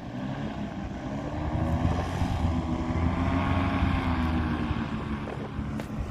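Paramotor engine and propeller running, its pitch rising and then easing back down, with wind buffeting the microphone.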